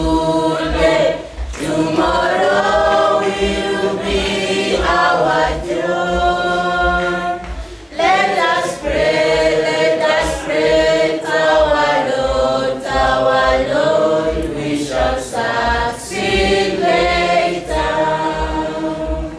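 Mixed choir of boys' and girls' voices singing a school anthem a cappella in parts, with a regular low thud under the voices.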